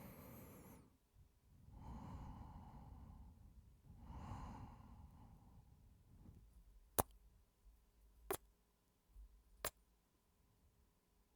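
A man breathing heavily and sighing close to the microphone, three long breaths, followed by three short kiss smacks about a second and a half apart.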